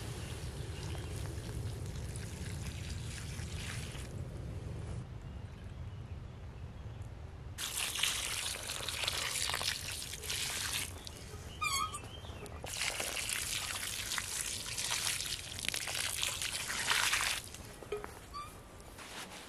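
Water poured from a small metal pot onto smouldering campfire ash and embers to put the fire out. It starts as a steady pour, then comes in two louder splashing pours, about 8 and 13 seconds in.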